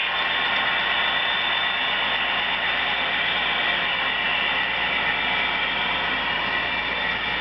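Model train running on the layout: a steady mechanical whir and rattle of the drive gearing and wheels on the track.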